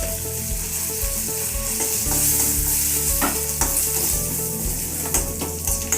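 Tempering sizzling in hot oil: mustard seeds, urad dal, dried chillies and freshly added curry leaves frying, with a spoon clicking against the pan as it is stirred.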